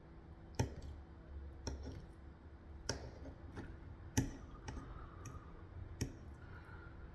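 Eating sounds: five sharp clicks about a second apart, from eating a plate of food at a close microphone.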